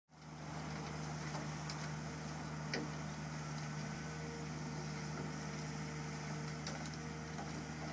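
Komatsu PC200 excavator's diesel engine running steadily, driving the hydraulics that turn the rotary screening bucket as it sifts soil, with a steady low hum and a few faint clicks. The sound fades in at the start.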